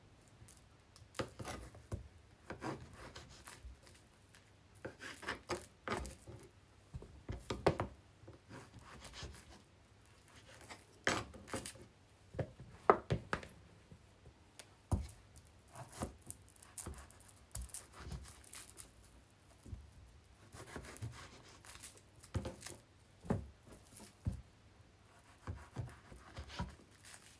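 Knife slicing bananas on a cutting board: irregular taps and knocks of the blade against the board, with soft rubbing and handling sounds between cuts.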